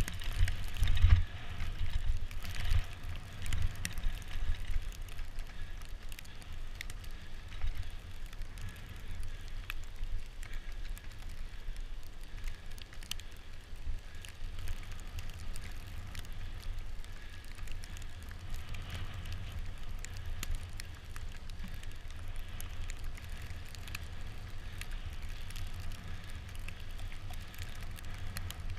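Bicycle riding over a snow-covered road: a steady low rumble of tyres and frame, with scattered small clicks and ticks, a little louder in the first couple of seconds.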